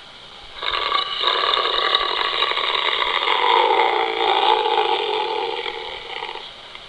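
Homemade dinosaur call sound effect: one long, rough call lasting about six seconds, starting just under a second in and dying away near the end.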